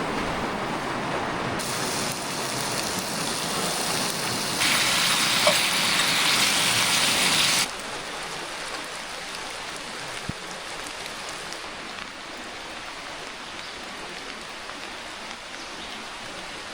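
Steady rain falling, an even hiss that jumps abruptly in level a few times, loudest in the middle and quieter over the last half.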